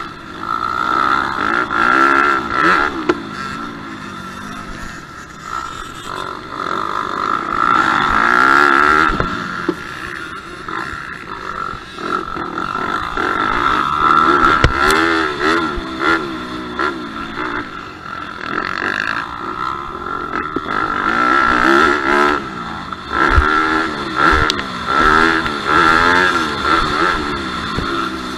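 Motocross bike engine revving hard and easing off over and over, heard up close from on the bike, with a few sharp thumps along the way.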